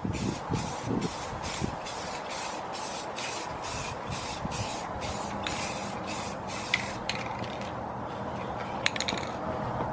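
Clear-coat paint spraying onto an aluminium wheel, a hiss pulsing in short, even bursts about three times a second as a heavy last coat goes on, stopping about seven seconds in. A few faint clicks follow near the end.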